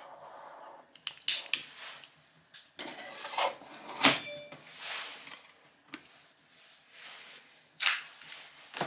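Metal camping cookware being handled: a lidded pot set into a folding metal stove, making scattered clinks and clatters, the loudest a single ringing clink about four seconds in.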